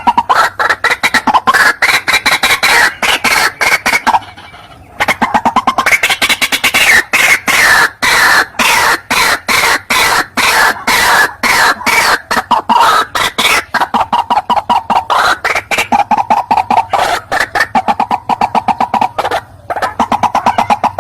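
White-breasted waterhen (ruak-ruak) calling: a loud, rapid run of short repeated notes, about five a second, with a brief pause a little after four seconds in.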